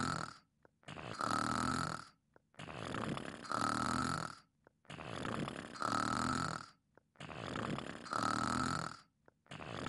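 A sleeping person snoring in a steady rhythm, about five snores, one every two seconds. Each snore is a rumble with a whistling note in it.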